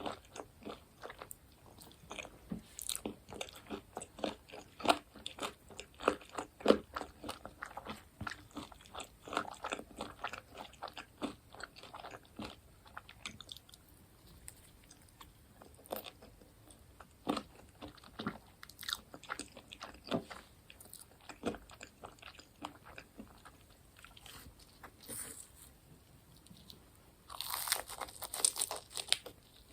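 Close-up crunchy bites and chewing of crisp fried food, with many sharp crackles, dense at first and then sparser. A louder, denser scratchy burst comes near the end.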